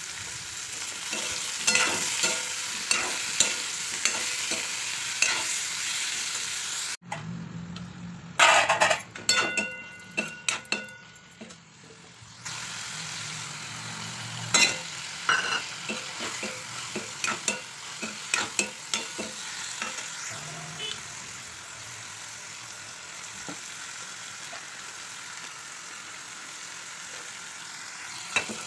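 Mushroom pieces sizzling in oil in a metal kadhai, with a steel spatula scraping and knocking against the pan as they are stirred. Partway through, the sizzle drops out at a cut, giving way to a few seconds of quieter clatter before the frying and stirring resume.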